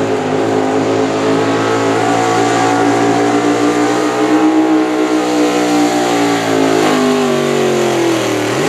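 Pulling tractor's engine running hard under load down the track, its pitch holding, then slowly sagging as it bogs down, and dropping sharply at the end.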